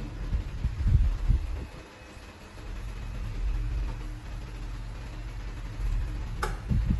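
BOQI FS-40-856 pedestal fan running at top speed while oscillating, a low rumble of moving air that swells and fades as the head sweeps. It is quietest about two seconds in, with a faint motor hum underneath. A single click near the end.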